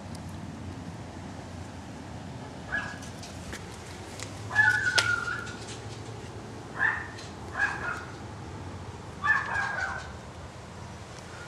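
A small dog barking and yelping about five times, the loudest bark in the middle with a slightly falling pitch.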